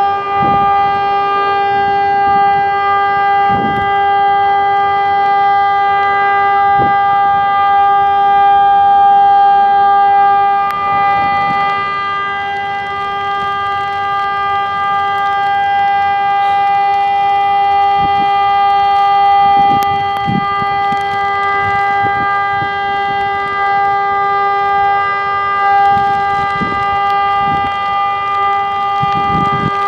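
TESLA UEAJ-II 600 electronic siren, fitted with older plastic loudspeakers from the UEAJ-I, sounding its continuous test tone: one steady, unwavering pitch with a stack of overtones, loud and without any rise or fall.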